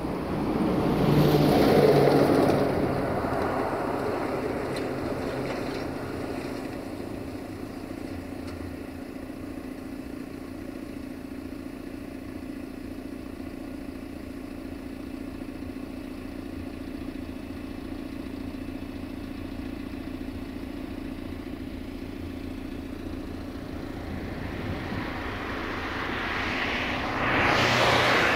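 Tank wagons at the tail of a freight train roll past in the first few seconds, then fade into a steady low engine hum. A louder rushing noise rises near the end.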